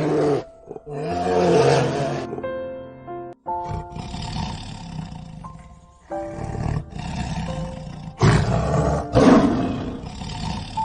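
A big cat roars several times over background music.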